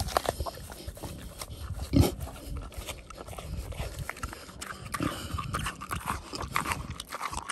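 A boar chewing an apple up close: irregular wet crunching and smacking, with one louder thump about two seconds in.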